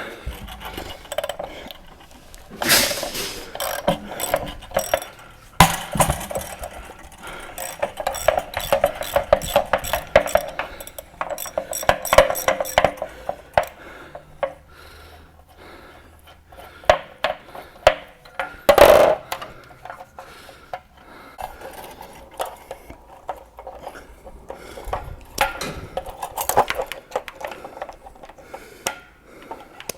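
Metal clinks, rattles and scrapes of a socket wrench and metal parts as a water heater's anode rod is worked loose and pulled out, with a louder clatter a little before two thirds of the way through.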